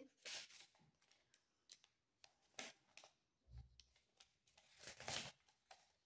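Near silence with a few faint, scattered rustles and light taps of cards being handled on a table; the loudest is a short rustle about five seconds in, with a soft low thump a little before it.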